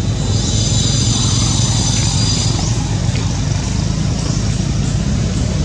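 Steady outdoor background noise: a low rumble with a continuous high-pitched buzz over it, and a few brief rising sweeps in the high buzz.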